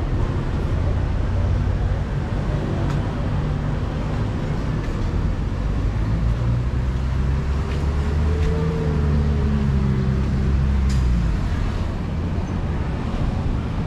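Street traffic rumble with a motor vehicle's engine passing close by in the second half, its drone rising and fading.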